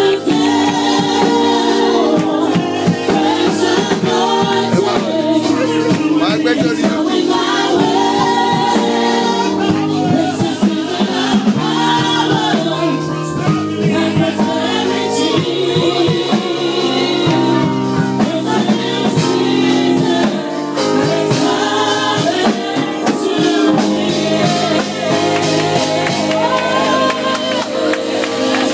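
Gospel music: a choir singing with a band, steady beat of drums and percussion under sustained keyboard chords.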